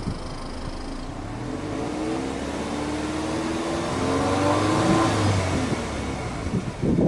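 Subaru Legacy 2.0GT spec.B's turbocharged EJ20 flat-four free-revving at standstill, heard at its twin exhaust tips. The revs climb steadily from about two seconds in to a peak near five seconds, then drop back toward idle, with a brief loud burst right at the end.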